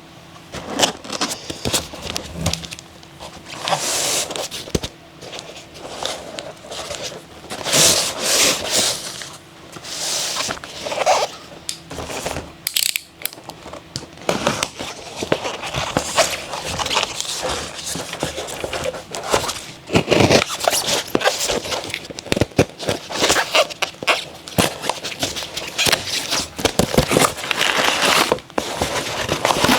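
Packaging being handled and opened by hand: irregular rustling, scraping and rubbing, with many sharp clicks and taps.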